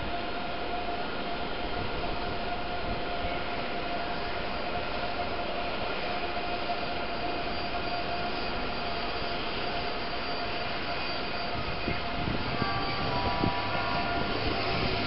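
A double-coupled ICE 3 high-speed electric train rolling slowly into the station: a steady running noise with a held whine, growing a little louder near the end.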